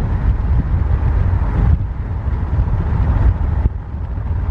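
Strong gusty wind rumbling on the microphone, a heavy low roar, mixed with the noise of a car on the highway.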